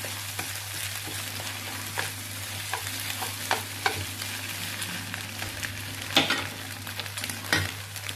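Egg fried rice sizzling in oil in a nonstick frying pan, with irregular scraping and tapping as it is stirred and broken up with wooden chopsticks; two sharper knocks against the pan come late on.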